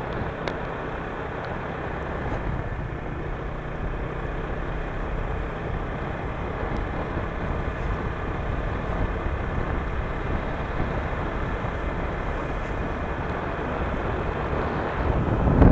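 Steady road and engine noise of a car driving, as picked up by a dashcam's microphone, swelling louder near the end.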